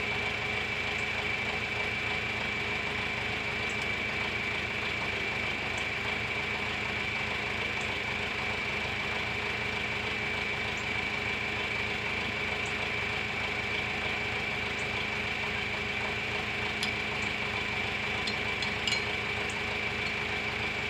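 Tractor engine idling steadily with a high, even whine over it. A few light metallic clicks come near the end.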